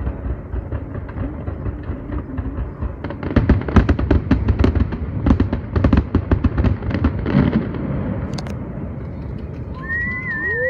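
Distant fireworks display heard across open water: a low rumble, then a rapid volley of bangs and crackles for about four seconds in the middle, fading off. Near the end a held, wavering whistle-like tone begins.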